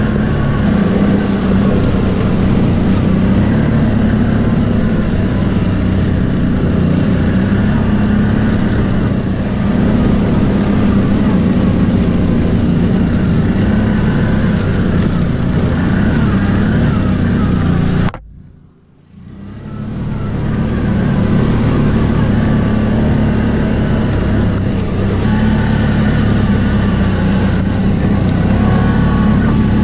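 CF Moto X10 1000 ATV engine running steadily under way on a trail. About two-thirds of the way through the sound cuts out suddenly for about a second and then fades back in.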